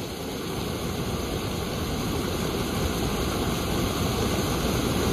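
Water pouring steadily over a low concrete weir and churning into foam below.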